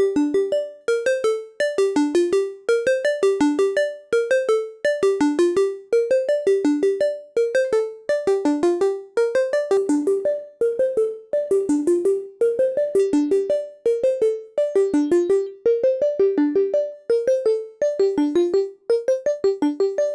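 Vector digital synthesizer playing a repeating arpeggiated pattern of short plucked notes, several a second, its bright upper overtones shifting as the patch morphs.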